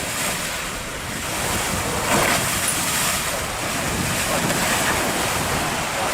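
Wind buffeting the microphone over rushing water and waves, with a brief louder surge about two seconds in.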